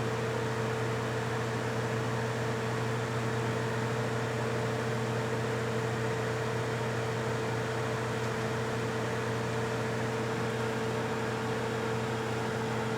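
Microwave oven running: a steady hum with fan noise.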